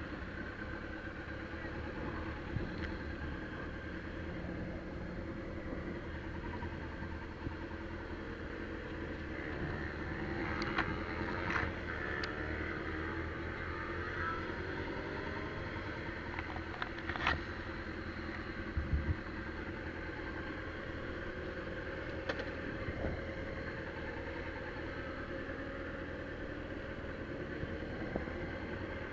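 Motorcycle engine running steadily at low speed, its pitch sliding up and down for a few seconds about a third of the way through, with a few sharp clicks.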